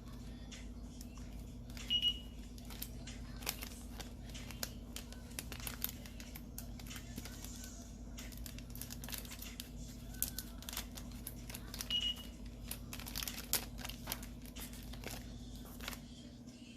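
Plastic packaging crinkling and crackling in irregular bursts as packs of nail stickers and decals are handled, over a steady low hum. Two short high beeps sound about two seconds and twelve seconds in.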